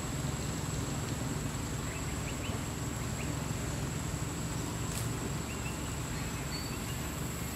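Outdoor ambience: a steady low rumble under a constant thin high whine, with a few faint short chirps in the middle and a single faint click.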